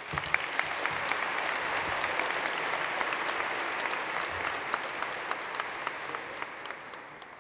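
Audience clapping, starting right after a graduate's name is read and fading away near the end.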